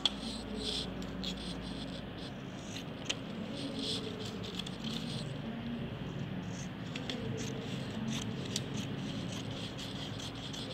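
Craft paper being handled, rustling and scraping, with scattered small clicks and crackles and one sharper tick right at the start.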